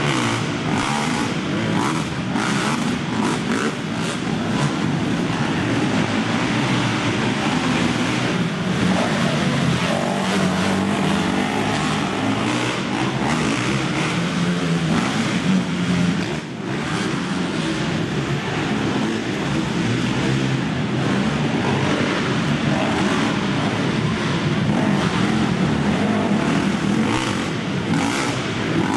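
Several racing quads (ATVs) running together on a dirt track, their engines revving up and down continuously as they race.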